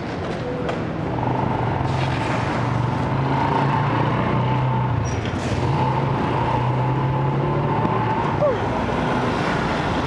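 City street traffic: a steady rush of passing cars, with a vehicle engine's drone holding through most of it.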